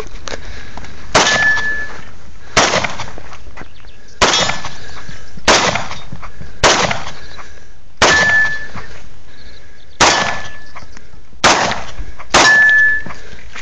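Nine handgun shots, fired one at a time about every second and a half. Several are followed by a short high ring from a steel target being hit.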